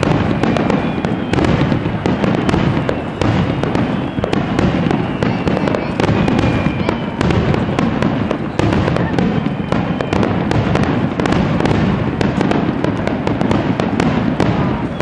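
A fireworks barrage (a starmine): aerial shells bursting in rapid succession, a dense run of bangs and crackles over a continuous rumble, with a few faint falling whistles in the first half.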